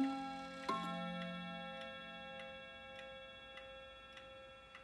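1960s Hermle wall clock striking the hour on its gong rods: two strokes, at the start and about a second in, the last of the nine o'clock strike, then the rods ring away slowly. The pendulum movement ticks steadily underneath.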